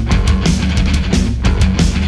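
Loud rock background music with hard, steady drum hits.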